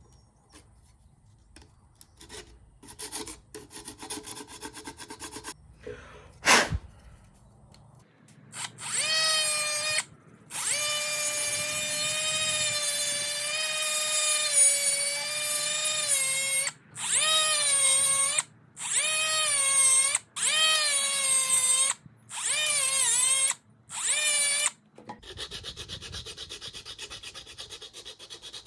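A small high-speed power tool cutting off the plastic tabs of a radio install kit: its motor whines in a string of bursts of one to several seconds, the pitch dipping each time it bites into the plastic. A sharp click comes before the cutting starts.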